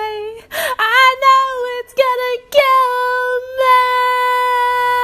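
An unaccompanied high-pitched voice singing long held, wordless notes, broken twice by short, noisy gasps for breath, with a long steady note from about halfway through.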